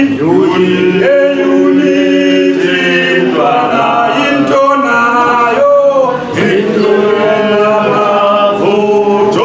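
A group of voices singing a song together, unaccompanied, with long held notes.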